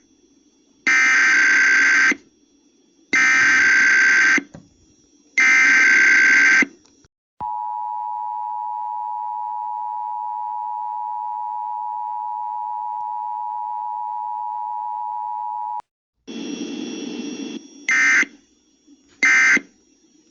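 Emergency Alert System relay: three loud SAME header data bursts of about a second each, then the two-tone attention signal (853 and 960 Hz) held steady for about eight seconds. After a short noisy stretch, the first two brief end-of-message bursts sound near the end.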